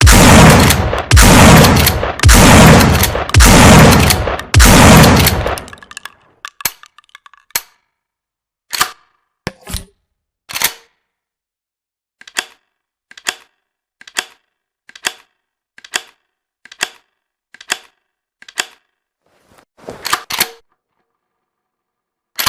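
Remington 870 pump-action shotgun fired about five times, roughly a second apart, each shot loud with a long echoing tail. Then comes a run of short, sharp mechanical clicks about once a second and a quick double clack near the end, the sound of the gun's action being handled.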